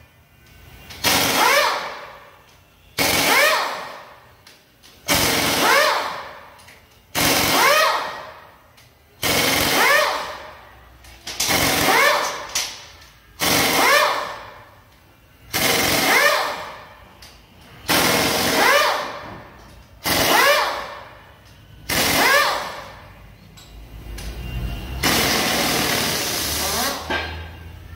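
Pneumatic impact wrench loosening engine bolts one after another: about a dozen short runs, one every two seconds or so, each spinning up and hammering for about a second, with a longer run near the end.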